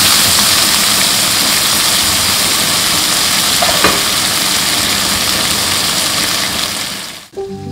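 Loud, steady hiss and sizzle of water steaming in a hot cast-iron skillet of burger patties, the steam melting the cheese on top. The hiss cuts off suddenly near the end.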